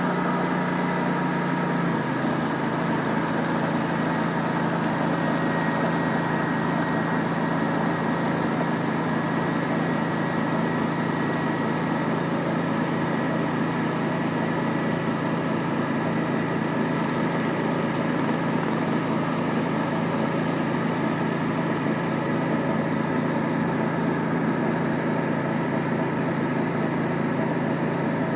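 Pressure-washer surface cleaner running with its water-reclaim vacuum, a steady machine drone with a strong low hum and a higher whine. The low hum drops slightly in pitch about two seconds in.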